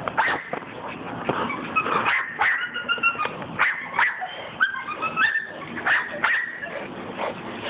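Pit bull making short, high whining calls and yips, with knocks and scuffling, while playing tug over a football.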